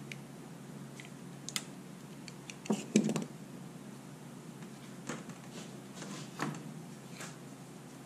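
Small clicks, taps and knocks of hand work on an extension cord at a bench vise: a knife being handled and put down and the cord's rubber jacket being twisted and pulled off. A louder cluster of knocks comes about three seconds in.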